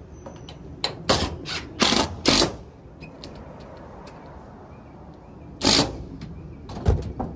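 Short rattling, clattering bursts from screwing down used tin roof panels: about a second in, twice around two seconds, again near six seconds, and a few sharp clicks near the end.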